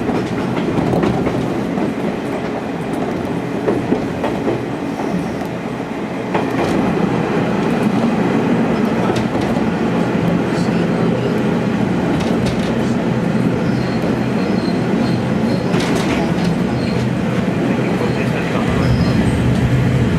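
Cabin noise of a KiHa 47 diesel railcar under way: a steady rumble of wheels on rail with clicks over the rail joints, growing louder about six seconds in. Faint high squeals come and go in the second half.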